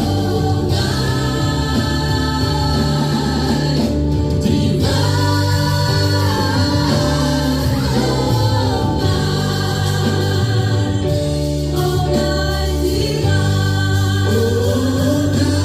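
Gospel worship music with a choir of voices singing over a steady band accompaniment with a strong bass.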